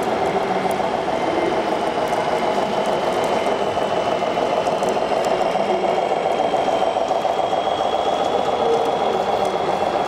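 Small electric motors and gearing of radio-controlled model construction machines running steadily, with a rapid rattle and a faint high whine that rises slightly in pitch.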